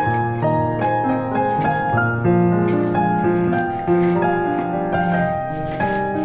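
Background instrumental music: a melody of separate keyboard notes over lower held notes.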